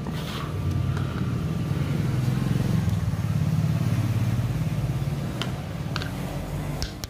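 A passing motor vehicle's engine, getting louder up to about the middle and then fading away, with a few light clicks near the end.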